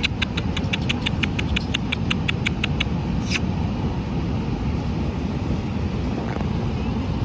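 Steady low outdoor rumble, with a rapid run of short, high chirps, about five a second, over the first three seconds, then one more a little later.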